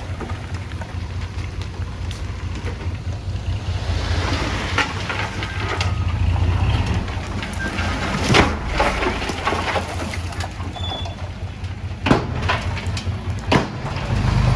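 Bulldozer's diesel engine running steadily at a low pitch, with sharp knocks and clatter, loudest about eight, twelve and thirteen and a half seconds in.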